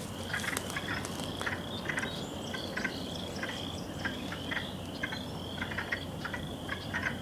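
Chorus of calling swamp animals: a high note repeated about twice a second, with clusters of quick clicking calls throughout.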